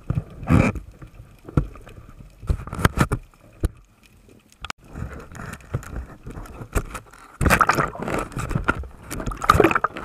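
Underwater water noise and bubbling from a spearfisher swimming up toward the surface, in irregular surges with sharp knocks. It is loudest near the end, as bubbles and surface chop wash over the microphone.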